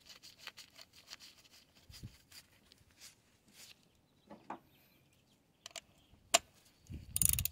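Light metallic clicks and clinks of hand tools working a spark plug into the outboard's cylinder head: a run of quick small clicks at first, a few scattered ones, then one sharp click about six seconds in and a brief louder rustle near the end.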